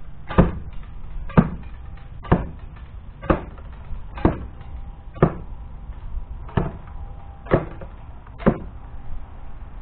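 Rapid archery with a traditional recurve bow: arrows shot one after another into a cardboard box target, each shot a sharp hit, about one a second, nine in all.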